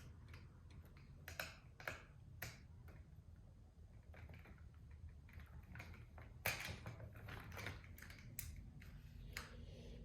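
Faint, irregular clicks and taps of a small screwdriver being handled and worked against the screws of a plastic Plarail toy train.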